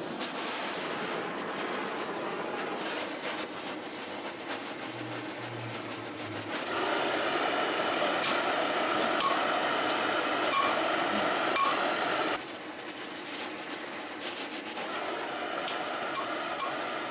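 Cutting torch burning with a steady hiss while it heats a rivet, louder for several seconds in the middle, with a few light metallic clinks.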